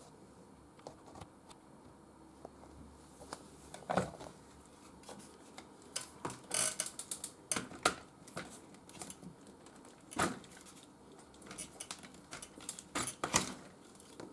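Irregular clicks and knocks of hard plastic and metal as the detached front wheel of a Rant Dream stroller is handled and fitted back onto its front fork, starting after a few quiet seconds.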